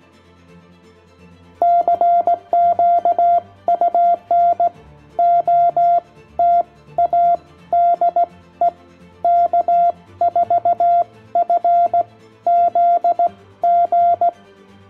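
Morse code sidetone keyed by hand on a Begali Expedition iambic paddle: a single steady mid-pitched beep sent as dits and dahs in runs of characters for about twelve seconds, starting a second and a half in.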